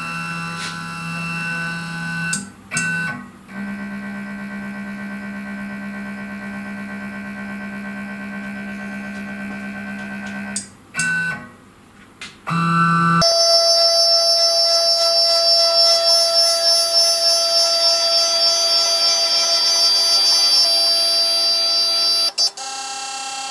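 CNC router stepper motors whining steadily as the machine homes its axes, with short breaks as the moves change. Instrumental synth music then starts about halfway and is louder.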